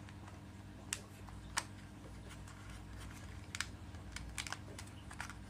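A few light, irregular clicks and taps of plastic and film as fingers press the 35 mm film leader and the hinged film-holding flap into place inside the open back of a Fujica Auto-7 camera, over a low steady hum.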